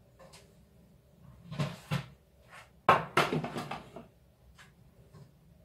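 A kitchen cupboard being opened and things inside it moved about: a couple of soft knocks, then a sharp knock about three seconds in followed by about a second of rattling clatter.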